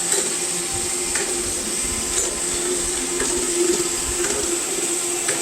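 iRobot Roomba i7 robot vacuum running: a steady motor hum and high whine over an uneven low rumble from the rear of the robot, with a faint tick about once a second. The rumble is an abnormally loud noise from the back that is not caused by the side brush, since it sounds the same with the brush removed or refitted.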